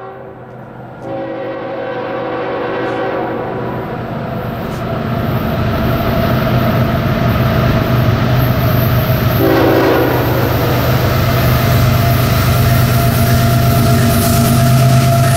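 CSX freight train approaching: the locomotive's horn sounds a chord for the first few seconds and again briefly about ten seconds in, over a low rumble of diesel locomotives and rails that grows steadily louder.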